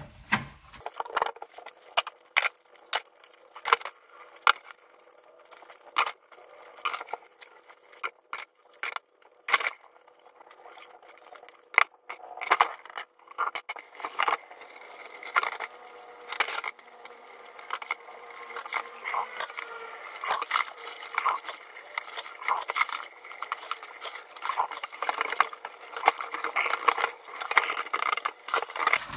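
Dishes washed by hand in a stainless steel sink: ceramic cups, bowls and metal utensils clinking and knocking against each other and the sink. About halfway through, the tap starts running steadily while a plate is scrubbed with a sponge, the clinks going on over it.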